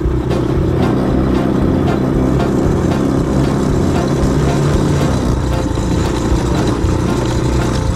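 ATV engine running steadily while the quad is being ridden.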